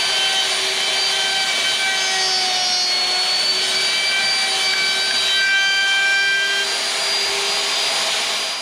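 Handheld wood router fitted with a 1/4-inch-shank carbide dovetail bit, running at full speed with a steady high whine over a rushing hiss. It is switched off at the very end and begins to spin down.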